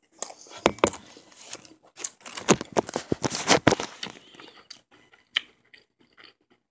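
Foil sandwich wrapper crinkling and crackling close to the microphone as it is handled, a dense run of crackles for about four seconds, then a few faint clicks.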